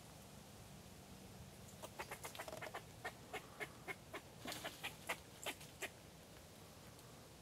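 Tree squirrel giving a run of short, sharp alarm barks, about four a second for some four seconds, starting about two seconds in.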